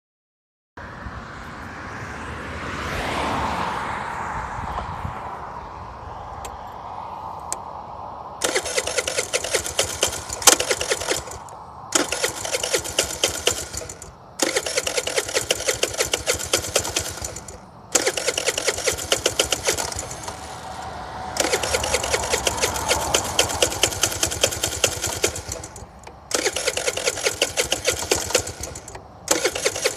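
A scooter's electric starter cranking the engine in about seven bursts of two to five seconds, with short pauses between them. The engine does not catch, so the scooter won't start. In the first few seconds, before the cranking begins, there is a rising and falling whoosh.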